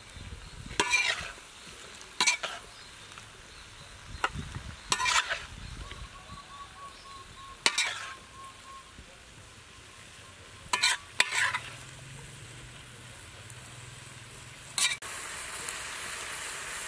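Metal spatula scraping and knocking against a wok, about seven strokes a couple of seconds apart, while stir-fried cauliflower and bell pepper sizzle in the pan. The sizzling gets louder near the end.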